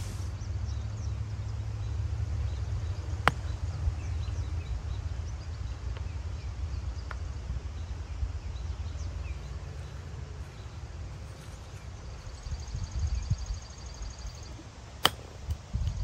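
Golf club strikes: a single sharp strike about three seconds in as a lob wedge plays the ball out of a sand bunker, and another sharp iron strike about a second before the end, over steady low wind rumble on the microphone. Faint bird chirps, with a high rhythmic trill near the end.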